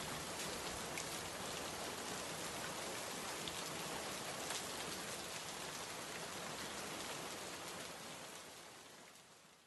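Steady rain falling, an even hiss with scattered drop ticks, fading out over the last two seconds.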